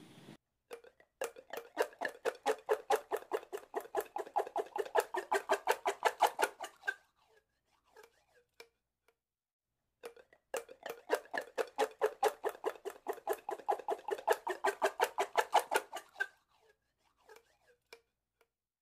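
Triceratops sound effect: a rapid pulsing animal-like call, about six pulses a second, that swells and fades over some six seconds. It is played twice, with a pause of a few seconds between.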